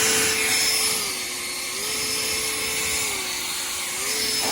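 Ego cordless battery leaf blower running, its fan rushing with a whine that steps between two speeds: it drops about a second in, rises just before two seconds, drops again near three and rises again about four seconds in.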